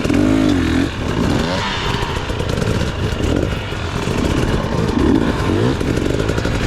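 Dirt bike engine revving up and down unevenly as it works slowly along a rough trail, with knocks and rattles mixed in.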